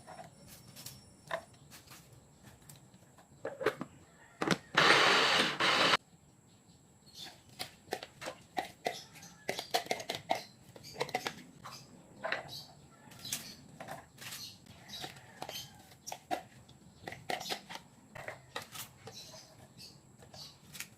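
Kitchen food-preparation sounds while making cabbage rice: a short loud rushing, whirring burst about five seconds in, then many irregular sharp clicks and taps.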